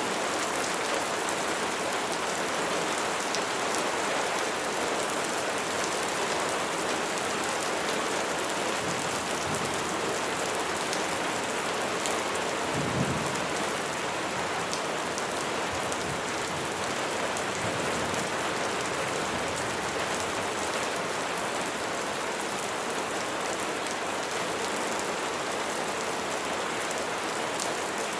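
Steady heavy rain pattering. A few low rumbles of thunder come through it, the strongest about halfway through.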